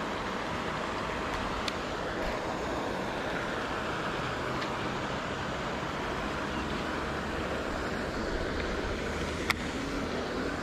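Steady rushing noise of wind and water at a fishing pond, with paddlewheel aerators splashing in the distance. A faint click about two seconds in and a sharper, louder click near the end.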